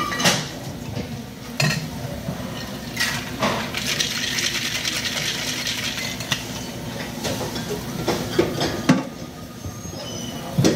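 Ice rattling hard inside a Boston cocktail shaker (a glass upended in a metal tin) as it is shaken for about five seconds, starting some three seconds in. Sharp clinks and knocks of glass and metal come before and after the shaking.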